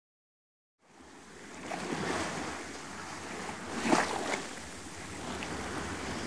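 Small waves breaking and washing up a sandy shore, starting after about a second of silence. The wash swells loudest about four seconds in.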